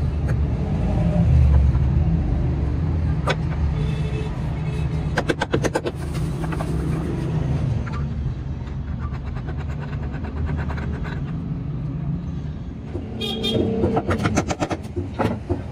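Hand work on a wooden cart frame: bursts of sharp clicking and tapping from hand tools on wood, and a clatter of metal near the end as a steel bar clamp is handled, over a steady low rumble that fades out about two-thirds of the way in.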